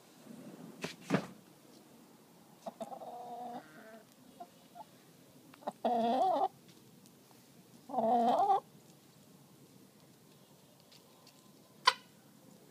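Hens calling close up: a soft drawn-out call about three seconds in, then two loud wavering calls about two seconds apart. There are sharp taps about a second in and near the end.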